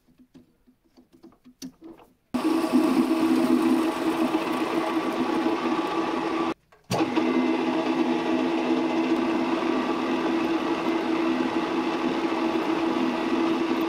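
A few light metal clicks as a titanium rod is set in the lathe chuck, then a metal lathe running with a steady hum, turning the titanium rod. After a brief break about seven seconds in, the lathe runs on while a small drill bit in the tailstock chuck drills the rod's end.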